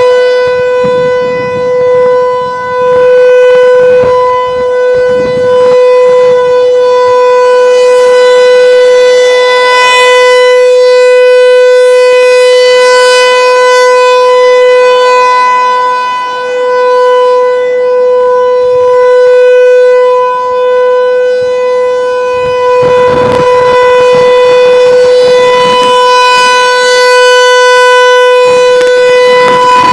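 ASC T-128 rotating tornado siren sounding a steady alert tone at constant pitch during its monthly test, the loudness dipping now and then as the rotating horn turns away.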